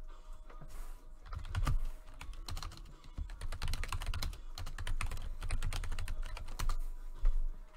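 Typing on a computer keyboard: quick, irregular runs of key clicks.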